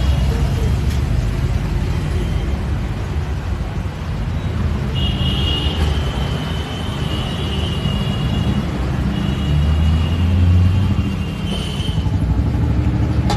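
Roadside traffic with a steady low rumble of engines, and a high vehicle horn sounding for a few seconds from about five seconds in, then again more briefly near the end.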